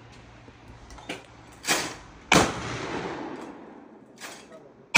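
Shotgun fired at clay targets: sharp cracks with long echoing tails. The loudest comes about halfway through and another comes at the very end, with a lighter crack just before the loudest one and a fainter knock in between.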